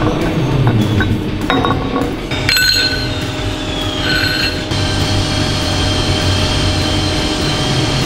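Metal parts clinking and ringing a few times, about two and a half and four seconds in, over a steady machine hum.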